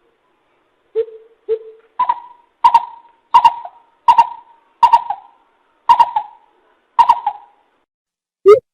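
Coucal (bìm bịp) calling: a series of deep, hollow hoots, two lower notes followed by about seven higher ones, spaced a little under a second apart and slowing toward the end.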